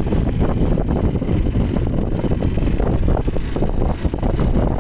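Wind buffeting the phone's microphone: a loud, irregular low rumble.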